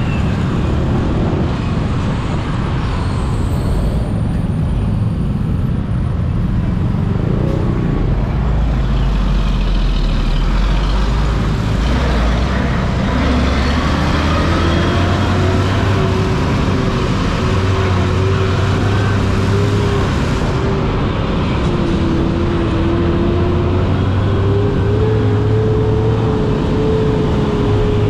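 Road traffic heard from a moving motorbike: a steady mix of engine and road noise. About halfway through, an engine tone comes in that wavers and slowly climbs in pitch.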